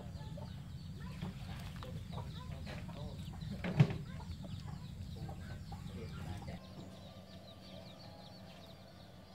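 Chickens clucking, many short scattered calls over a steady low hum, with one sharp knock about four seconds in; the hum drops away after about six and a half seconds.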